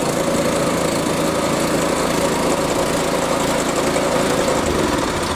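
Hyundai HYSC210 scarifier's petrol engine running steadily just after a recoil cold start, with the cartridge raised so it is under no cutting load.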